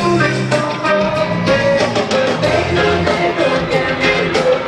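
Live band playing a song with a singer, with a regular drum beat under it, heard from far back in the audience.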